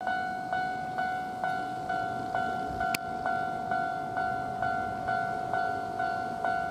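Japanese railway level-crossing warning bell ringing a steady repeated electronic ding, a little over two strikes a second, warning of an approaching train. A single sharp click about three seconds in.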